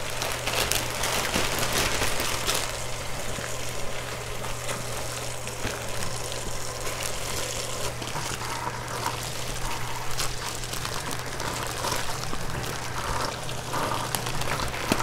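Water running steadily, with a low steady hum underneath.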